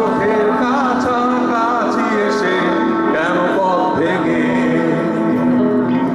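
Rock band playing live: a male vocal sings a wavering, held melody over electric guitar chords and drums, picked up from the crowd by a camera microphone.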